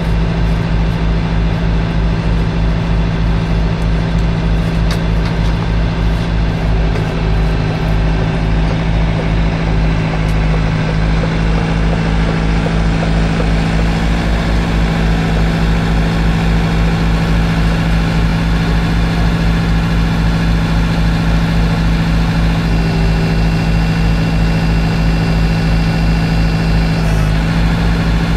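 Diesel engine of heavy paving equipment running steadily at a constant speed, with an even low throb.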